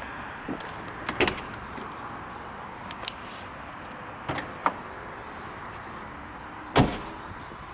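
A few sharp clicks and knocks over a steady background hiss, the loudest a single thump near the end.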